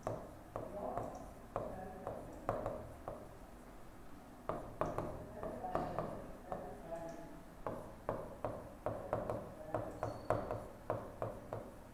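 Pen tip tapping and clicking on the glass of an interactive touchscreen board as words are handwritten: irregular short taps, coming faster in the second half, with a faint voice murmuring now and then.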